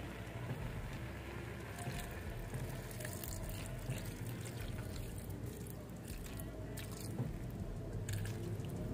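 Water poured from a glass onto sliced potatoes and ground spices in a karahi, trickling and splashing; the splashing starts a couple of seconds in.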